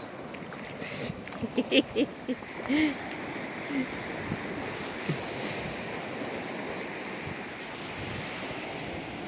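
Small waves washing onto a sandy beach, with wind on the microphone. A few short pitched sounds come between about one and a half and three seconds in, louder than the surf.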